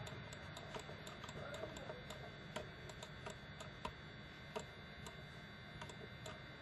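Computer mouse clicking and scroll-wheel ticking, faint, sharp clicks a few times a second at uneven intervals over a low background hiss.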